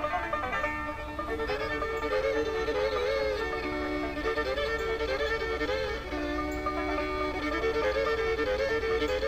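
Background music: a fiddle playing a flowing melody with sliding, wavering notes over a light accompaniment.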